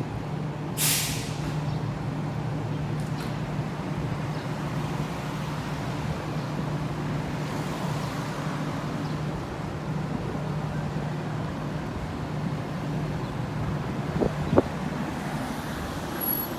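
Fire engine's diesel engine idling steadily, with a short sharp air-brake hiss about a second in and a brief knock near the end.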